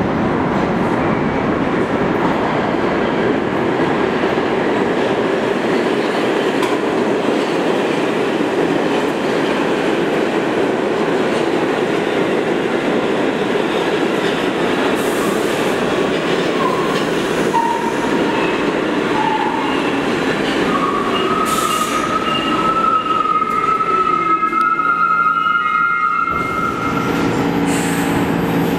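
A train of R46 New York City subway cars rumbling into an underground station on steel rails. In the second half high squeals come from the train and a whine falls in pitch as it brakes. Near the end it comes to a stop and the rumble gives way to a steady hum.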